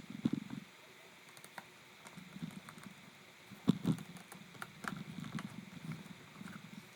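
Scattered small clicks, taps and soft knocks of hands working on a laptop's casing and parts, irregular, with a sharper click about half a second in and the loudest one a little past halfway.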